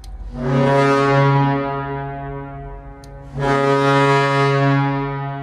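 St. Louis Blues goal horn sounding two long, low, steady blasts. The second blast starts about three seconds in, and each one fades away slowly.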